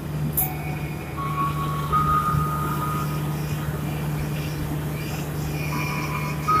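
KRL Commuter Line electric train running straight through the station along the platform without stopping, with a steady low hum and rumble from the passing cars. A few faint steady tones come and go over it.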